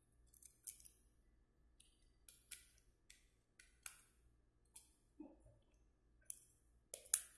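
Faint, irregular clicks and taps of a smartphone's small plastic parts and casing being handled and fitted together, about a dozen in all, with one duller tap about five seconds in and the sharpest click near the end.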